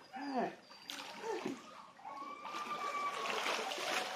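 Water splashing and sloshing as people move through shallow sea water, getting louder about halfway through, with faint voices at the start.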